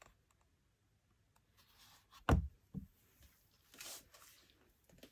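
Handling noise from a leather championship belt being moved by hand: a sharp thump a little over two seconds in, a smaller knock just after, and a brief rustle near the end.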